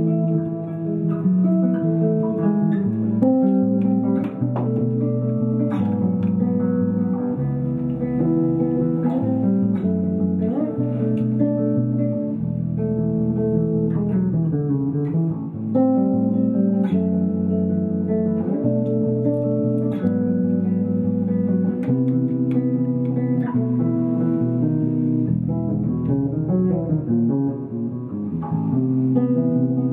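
Guitar music: plucked notes over a low bass line that changes every couple of seconds.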